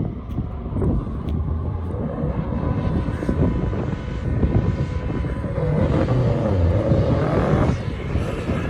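Vehicle engine running with wind buffeting the microphone; the engine's pitch rises and falls about two-thirds of the way through.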